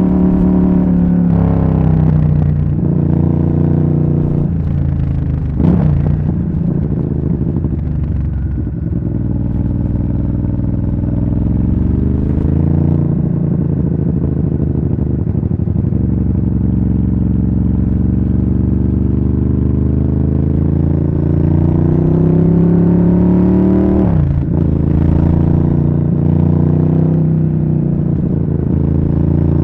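Ducati Monster S4R's liquid-cooled L-twin engine and exhaust under way, heard from the bike's tail pack. The engine note climbs under acceleration and drops sharply at gear changes about six seconds in and again near the end, with a long slow fall and then a steady climb in between.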